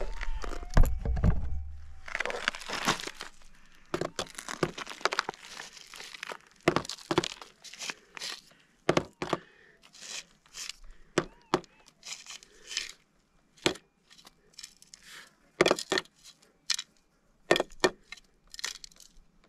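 Loose stony dirt and chips of schist being scraped and shifted by hand while a detector target is dug out: a run of short, irregular scrapes and clicks of grit and stones. There is low handling rumble in the first couple of seconds.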